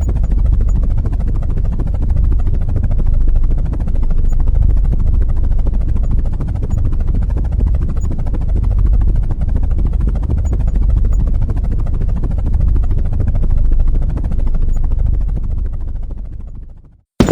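Loud, steady low rumble of a motor or rotor, like a helicopter or vehicle engine, fading out near the end.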